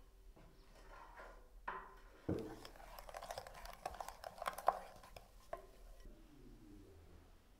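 Wooden spatula stirring a runny egg mixture in a glass bowl. Wood knocks and scrapes against the glass, with one sharper knock about two seconds in and a busy run of small clicks through the middle.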